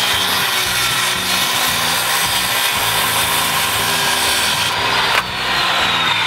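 Corded circular saw running at speed and cutting through an old weathered wooden board, a high motor whine over the rasp of the blade in the wood. About five seconds in the cut finishes and the whine starts to fall as the blade spins down.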